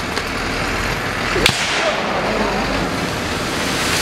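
A tree being felled going over: one sharp crack about a third of the way in as the wood gives way, then a rushing rustle of the falling crown, which swells at the end as the tree comes down.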